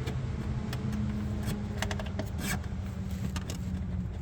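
Scattered light clicks and small rattles of parts being handled, over a steady low hum.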